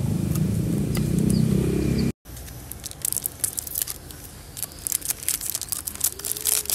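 A roll of Mentos mints being torn open by hand, its wrapper crinkling and tearing in quick, crackly bursts. Before that, a steady low rumble stops abruptly about two seconds in.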